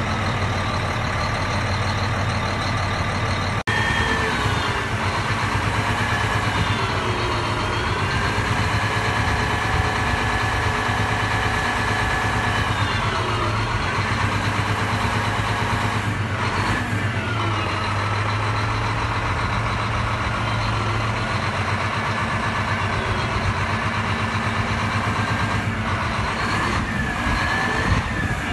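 Terex TA400 articulated dump truck's diesel engine idling steadily, with a higher whine gliding slowly up and down over it.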